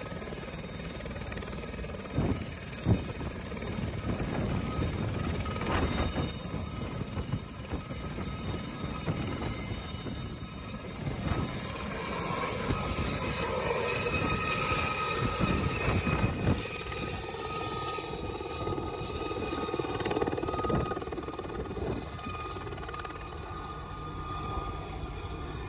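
Aérospatiale SA341G Gazelle helicopter lifting off and flying away: its Turbomeca Astazou turboshaft whines steadily under the rotor and fenestron tail-rotor noise. The sound grows fainter over the last ten seconds or so as the helicopter moves off.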